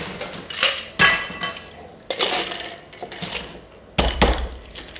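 Ice cubes clattering and clinking into a glass-and-metal Boston cocktail shaker in three loud scoops, a second or so apart. About four seconds in comes a heavier thump as the metal shaker tin is knocked onto the glass to seal it.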